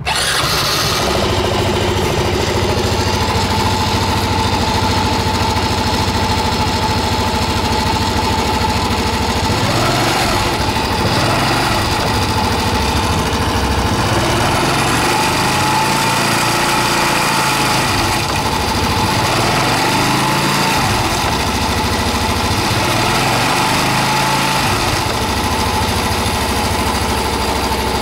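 Honda Super Cub 110's air-cooled single-cylinder four-stroke engine idling steadily just after a cold start, with a fine 'chiri-chiri' (shari-shari) rattling noise. The owner says this noise is heard only right after starting on cold days and fades within two to three minutes.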